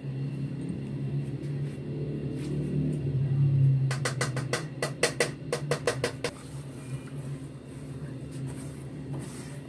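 A spatula clicking and scraping against a pan of sugar and water as it is stirred: about a dozen quick strikes over two seconds, a little past the middle. A steady low hum runs underneath.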